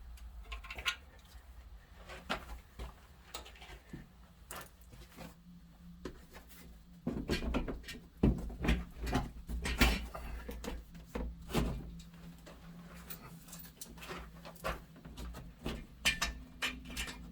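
Irregular clicks and knocks from a socket wrench and parts being handled under a car, as the oil drain plug is snugged up and the skid plate is refitted; busiest about halfway through.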